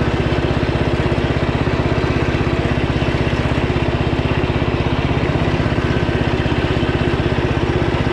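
A 13-horsepower lawn tractor engine running steadily as the tractor drives along, its exhaust beating evenly and quickly.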